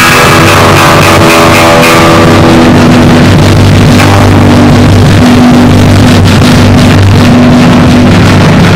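Live rock band playing loud, guitar and bass holding sustained notes with no vocals, recorded through an overloaded camera microphone that badly distorts and clips the sound.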